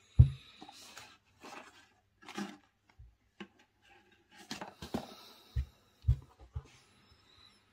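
Handling noises from unboxing massage balls: bursts of rustling and several dull thumps, the loudest thump right at the start and a cluster of three more about five and a half to seven seconds in.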